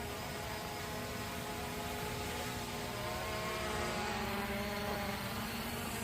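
Hubsan H501S quadcopter's brushless motors and propellers whirring steadily, slowly growing louder as it descends on its GPS-guided automatic landing. The pitch wavers slightly as the motors adjust.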